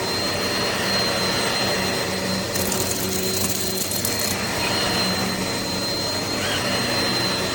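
Upright vacuum cleaner running steadily, a rushing motor noise with a steady high whine. About three seconds in there is a burst of crackling lasting a couple of seconds.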